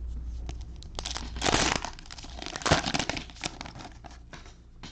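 Plastic cello wrapper of a football card pack being torn open and crinkled, with loud crackling bursts about a second in and again near the middle.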